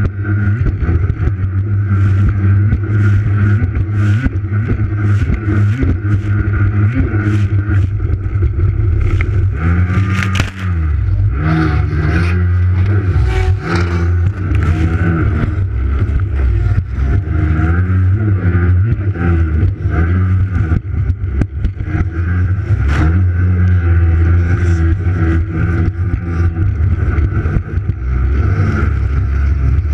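Racing jet ski engine running hard at high revs, its pitch dipping and climbing again several times around the middle. Sharp splashes of water against the hull come through now and then.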